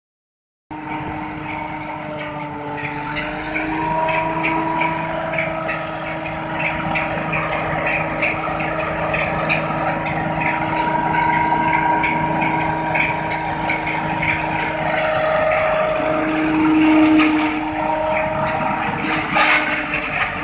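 Tractor-mounted napier (elephant grass) harvester running behind a New Holland tractor while cutting standing grass. A steady machine whine sits over the tractor's engine, starting just under a second in, and its pitch shifts a little about three quarters of the way through.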